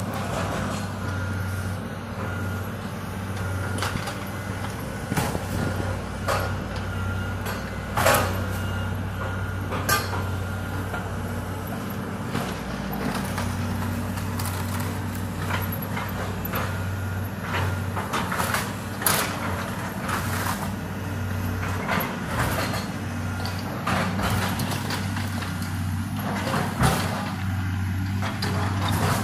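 Tracked CAT excavator's diesel engine running steadily during demolition of a wood-frame house, with a handful of sharp cracks and crashes from timber and debris being broken and dropped.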